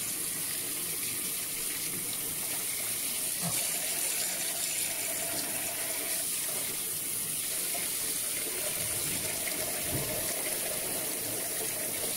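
Water running steadily into a kitchen sink while boiled kanda is drained. The even rush starts abruptly and keeps a level pitch.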